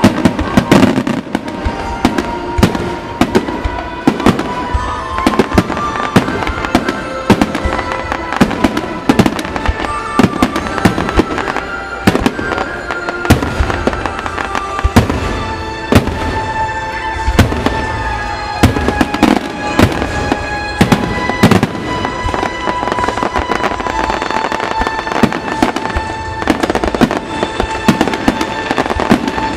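Aerial fireworks bursting in rapid succession, a dense run of sharp bangs and crackles throughout, over the display's music playing along.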